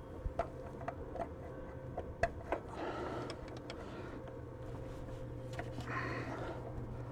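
Scattered light clicks and taps of metal parts being handled as a pipe sleeve is worked onto a tractor shaft, over a faint steady hum.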